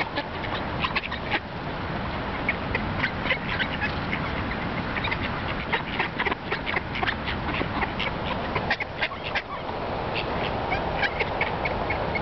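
A flock of mallards feeding at close range: many quick, short clicks and calls packed tightly together, over a steady hiss, with a brief lull a little after eight seconds.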